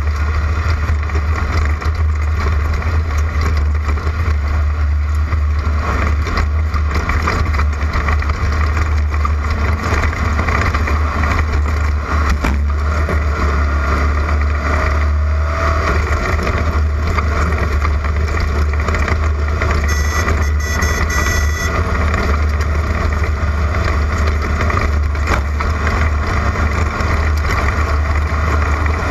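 Class 11 stock Volkswagen Beetle off-road race car at speed: a steady low drone from its air-cooled flat-four engine under load, mixed with wind and rough-road noise.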